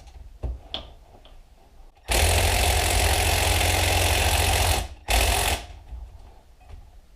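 Power tool, most likely an impact wrench, undoing fasteners on a motorcycle engine being dismantled: one long run of nearly three seconds, a short pause, then a brief second burst. A few light clicks of handling come first.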